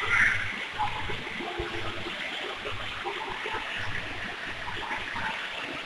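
A small shallow stream running over stones, a steady splashing rush of water.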